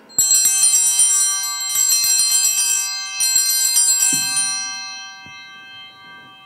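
Altar bells rung at the elevation of the chalice: a cluster of small bells shaken in three rings of about a second each, then left to ring out and fade. A soft knock about four seconds in as the chalice is set down on the altar.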